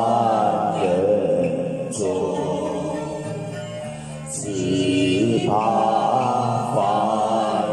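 A man singing Chinese verse into a handheld microphone, holding long, wavering notes: two sung phrases with a softer stretch in between about four seconds in.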